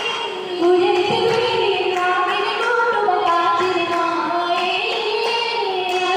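Oppana song sung by a group of female voices without instruments, with the dancers' hand claps keeping the beat.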